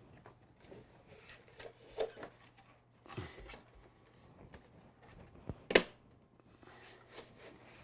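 Scattered light clicks and knocks of handling at a computer desk, with one sharper knock about three-quarters of the way through, over a faint steady hum.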